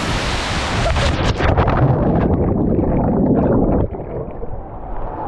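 Waterfall cascade rushing, then heard from under the water as the camera plunges into the pool: the bright hiss turns into a muffled, heavy churning with a low rumble, which falls away suddenly a little before four seconds in, leaving a dull, muffled rush.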